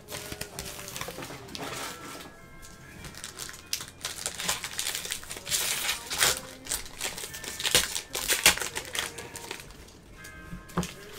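Foil trading-card pack wrappers crinkling and crackling as packs are handled and torn open by hand, with many quick irregular crackles.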